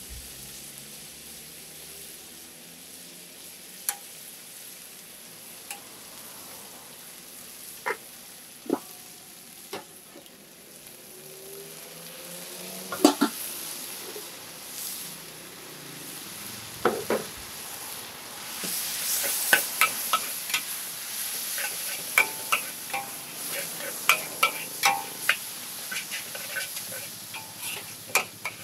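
Food sizzling in a hot pan with a spatula knocking and scraping against it. At first there are only a few scattered knocks over a faint hiss. About two-thirds of the way in the sizzling grows louder and the knocks come quick and close together as the food is stirred and tossed.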